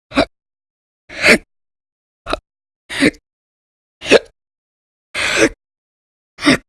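A woman hiccuping loudly, seven sharp hiccups at roughly one a second, the one about five seconds in a little longer than the others. Part of a persistent bout of violent hiccups that goes on for hours.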